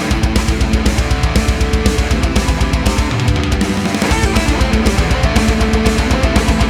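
Heavy metal music with distorted electric guitar and a fast, driving beat.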